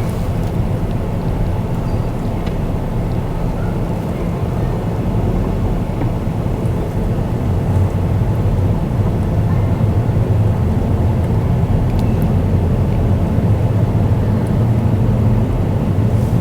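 Car driving at steady speed: a continuous low rumble of engine and tyre noise that grows slightly louder about halfway through.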